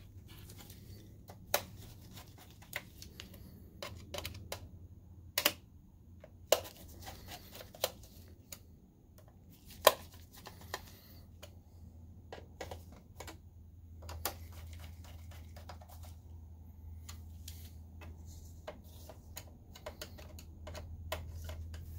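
Hand screwdriver tightening screws into the metal shield plate of an opened Optoma HD20 DLP projector: scattered, irregular clicks and ticks of the bit, screws and sheet metal, the sharpest about ten seconds in, over a low steady hum.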